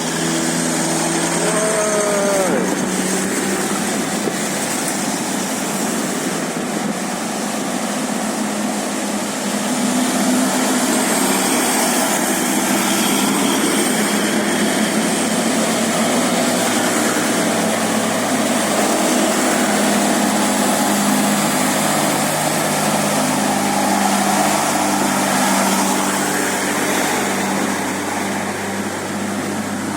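Road traffic: vehicle engines running steadily amid continuous road noise, with a few short pitched notes right at the start.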